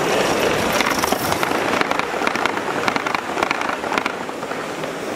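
Gauge 1 model train carriages rolling past close by, the wheels clicking and rattling rapidly and irregularly on the track, easing a little near the end.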